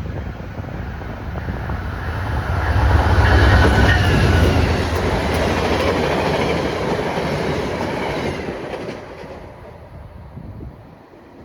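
Passenger train running past on the tracks: a rumble of wheels on rail that swells to its loudest about three to five seconds in and dies away after about nine seconds.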